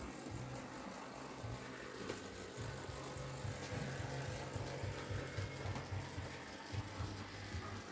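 N-gauge model steam locomotive and passenger coaches running along the track: a small electric motor humming with a fast, even pulsing and light clicking of the wheels.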